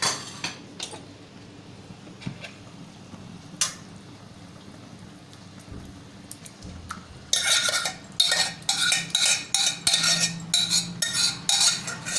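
Metal spatula scraping and clinking against steel cookware as mashed vegetables are scooped into a kadhai of masala gravy. A few separate clinks come first, then a quick run of scrapes and knocks from about seven seconds in.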